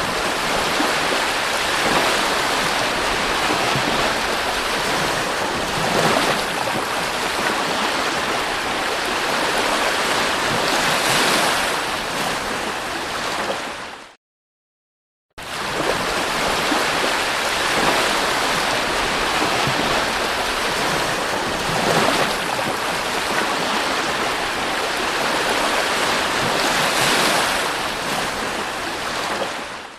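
Sea waves breaking and washing on a beach: a steady rush of surf with a few louder surges. It cuts out for about a second halfway through, then starts again.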